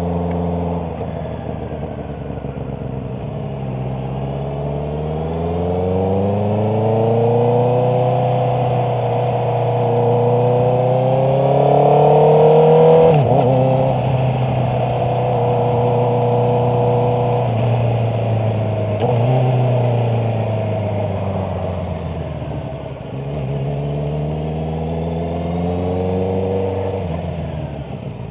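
Honda CBR650R's inline-four engine accelerating and easing off, its pitch rising and falling several times: it climbs to a peak about 13 seconds in and drops away sharply, holds fairly steady, falls off around 22 seconds, then rises again and drops near the end.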